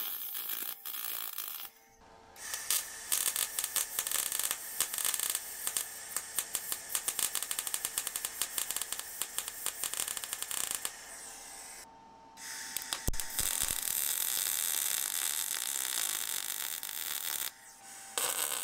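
Wire-feed (MIG) welder arc crackling steadily as steel brake-line brackets are welded onto an axle tube. The crackle comes in three runs, the longest about eight seconds, with short pauses between beads.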